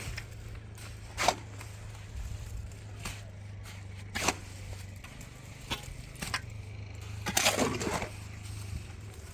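A few separate sharp knocks and clatters at irregular intervals, the longest cluster near the end, over a steady low hum.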